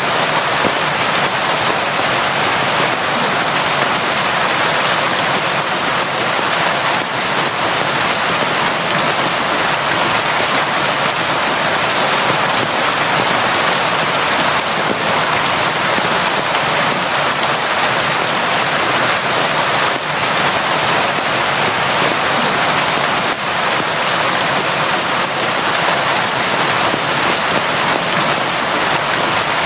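Steady, constant rain falling on surfaces, an even hiss with scattered individual drops.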